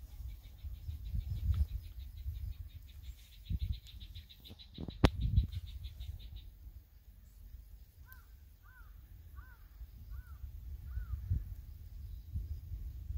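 Outdoor ambience with wind rumbling on the microphone and a sharp knock about five seconds in. An insect trills in fast, even pulses for the first six seconds or so. From about eight seconds a bird calls five times in quick succession, each a short arched note, and twice more near the end.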